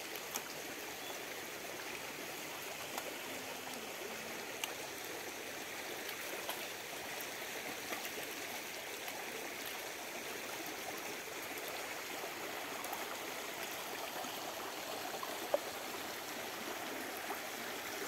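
Steady rushing of running water, with a few faint clicks.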